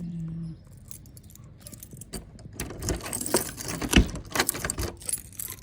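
Excited dogs moving about with their collar tags jangling, metal clicks coming thick and fast from about halfway in, with a knock about four seconds in.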